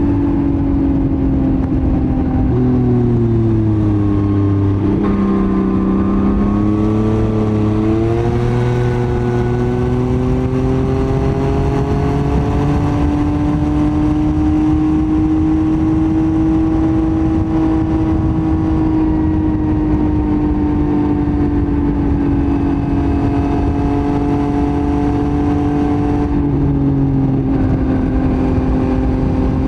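Yamaha MT-09's three-cylinder CP3 engine running through a Roadsitalia titanium full exhaust while riding. The engine note falls a few seconds in, climbs back and holds a steady cruise, then dips slightly near the end.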